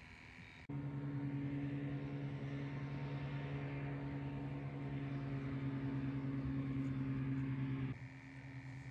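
Steady low motor hum that starts suddenly about a second in and drops in level near the end.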